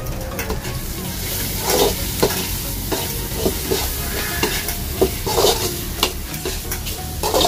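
Onion-tomato masala with ground spices frying and sizzling in a pan, stirred with irregular scraping strokes against the pan.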